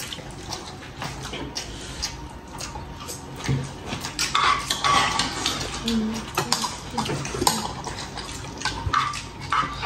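Chopsticks and a spoon clinking against ceramic bowls and plates while eating, many light scattered clicks with chewing and slurping noises in between.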